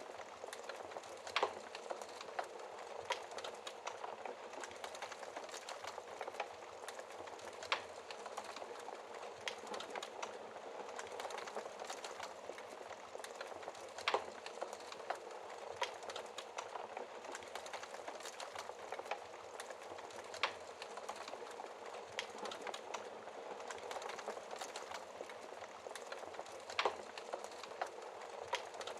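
Fireplace fire crackling: a steady hiss full of small crackles, with a louder sharp pop about every six seconds, five in all.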